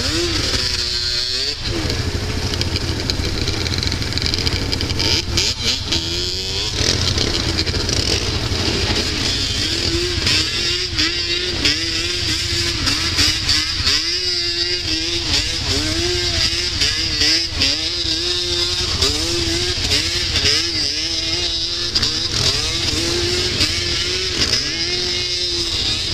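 Quad (sport ATV) engines revving up and falling back over and over as the riders accelerate and turn on dirt, with a steady low rumble underneath.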